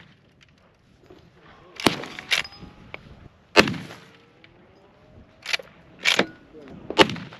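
Loud shots from a Big Horn Armory Model 89 lever-action rifle chambered in .500 S&W Magnum, with sharp clacks of the lever being worked between shots; the loudest report comes about three and a half seconds in.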